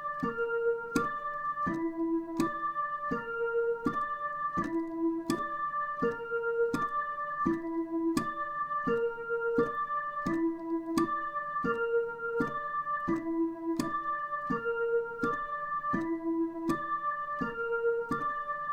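Dutch ambulance siren tones played as a broken chord: stepped electronic notes, each with a sharp keyboard-like attack. The same short figure repeats over and over at an even level.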